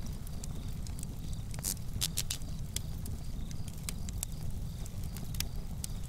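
Campfire crackling: irregular sharp pops and snaps of burning wood over a steady low rumble of the flames.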